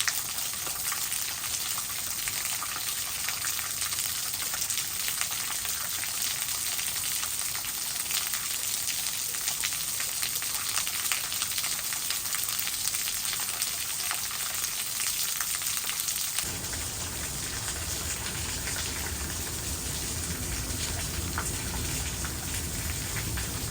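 Waterfall splashing and rushing steadily. A little past halfway the sound abruptly gains a deeper rumble underneath.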